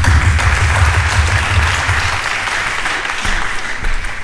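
Audience applause, a steady wash of clapping that thins a little near the end, with a low rumble beneath it for the first couple of seconds.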